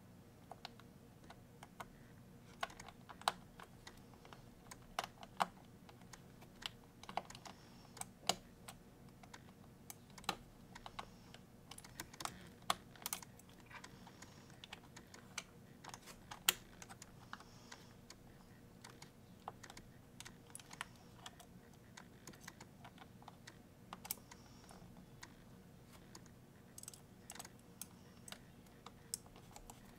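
Irregular small clicks and taps of a precision screwdriver and small tools working on a MacBook Pro's metal parts and screws during reassembly, sometimes several in quick succession.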